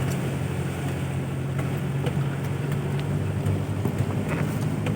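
Toyota Land Cruiser Prado's 1KZ-TE 3.0-litre turbo diesel running steadily under way, a low even drone with a few light rattles and clicks from the vehicle.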